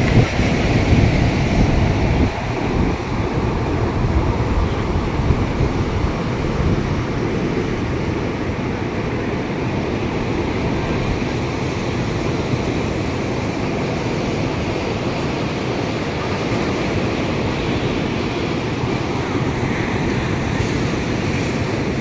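Ocean surf breaking and washing up a sandy shore: a steady rushing noise, a little louder in the first two seconds.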